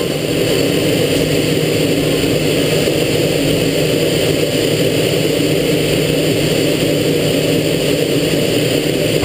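T-33 jet trainer in flight: a steady, unbroken engine drone and rush of air with a thin high whine.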